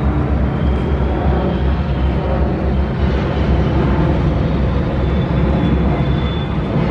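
EMD diesel locomotive's engine running with a steady low drone as the locomotive moves slowly along the track hauling cars.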